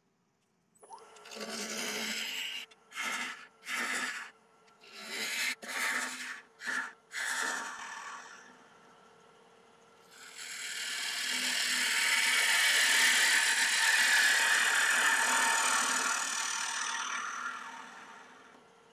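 A 3/8-inch bowl gouge cutting into the inside of a spinning damson bowl on a wood lathe. First comes a run of short cuts, then one long cut of about eight seconds that swells and fades, over the lathe's faint steady hum.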